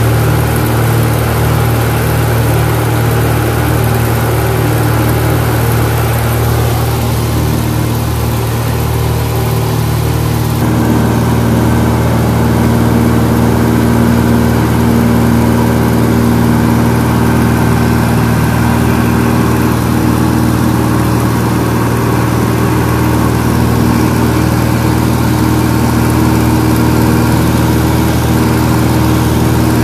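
Cessna 172's single piston engine and propeller running steadily, heard from inside the cabin. About ten seconds in, the tone shifts abruptly and gets slightly louder.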